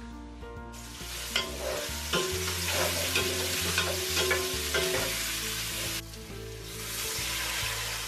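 Onion and carrot slices sizzling in hot oil in a non-stick pot. A spatula stirs them, scraping and knocking against the pan several times in the first half. The sizzle starts about a second in.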